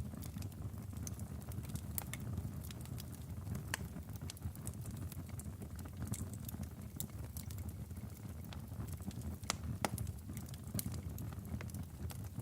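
Wood fire burning in a fireplace: a steady low rumble of flames with irregular sharp crackles and pops from the logs, one louder pop about ten seconds in.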